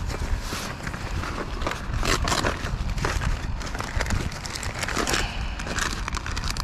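Hands rummaging through a soft tackle bag, a plastic tackle box and lure packaging rustling in irregular bursts with scattered clicks, over a steady low rumble.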